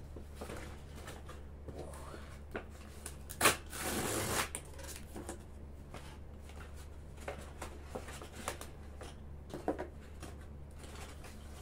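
Cardboard and paper packaging being handled and torn open by hand: scattered rustling, scraping and small clicks, with one sharp crack about three and a half seconds in followed by a short burst of tearing rustle.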